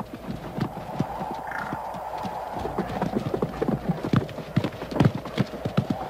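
Bison hooves and wolf paws thudding and scuffling on turf as the bison wheels and charges at the wolves: many quick, irregular thumps.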